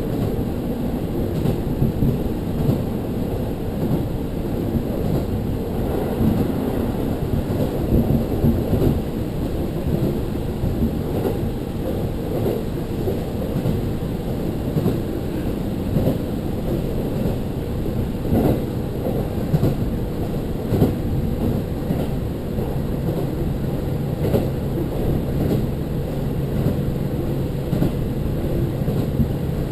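Diesel railcar running along the line, heard from inside: a steady low rumble of wheels on rail and the diesel engine, with scattered light knocks. A steady low engine hum joins about three quarters of the way through.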